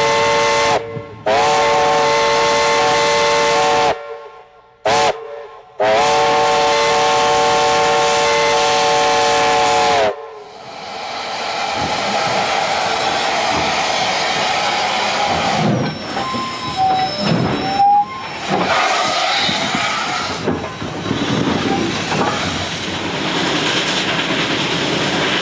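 Steam locomotive 734, a 1916 Baldwin, sounding its multi-chime steam whistle in a long, long, short, long pattern, the grade-crossing signal. After that comes a loud hiss of steam as the engine works, with knocks and a brief toot near the end.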